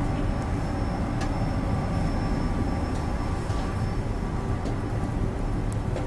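ASEA X10 electric commuter train in motion: a steady low rumble of running noise with faint steady whining tones and a couple of sharp clicks, one about a second in and one near the end.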